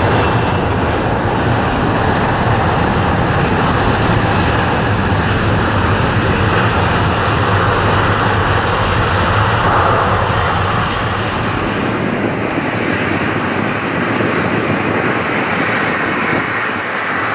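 Boeing 777 jet engines running at takeoff power: a loud, steady rushing noise that eases a little after about ten seconds. A thin high whine comes in later on.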